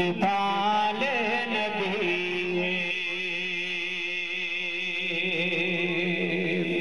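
A man's solo voice reciting a naat in Urdu devotional style: melodic turns with ornamented pitch for about two and a half seconds, then one long held note.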